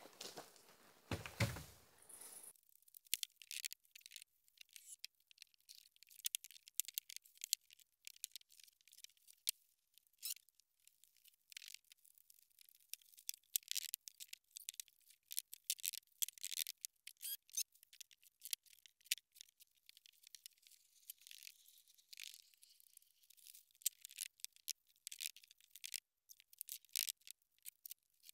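A dull thump about a second and a half in as an insulation pack is set down, then a faint, thin, rapid crackle of the plastic wrapping on the insulation packs being torn and crumpled.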